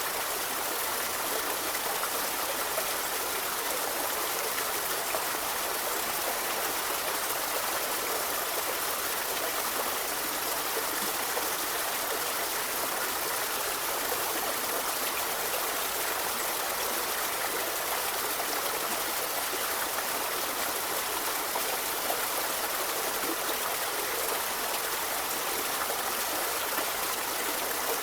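A forest river flowing steadily, a continuous rush of running water over stones.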